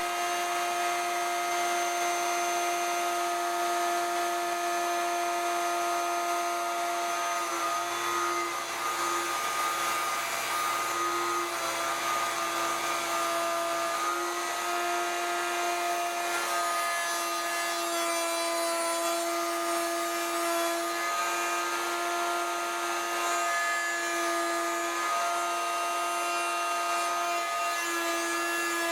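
Table-mounted router running at full speed with a steady high whine, cutting mortises into 2x4 lumber. The pitch dips slightly now and then as the bit takes load.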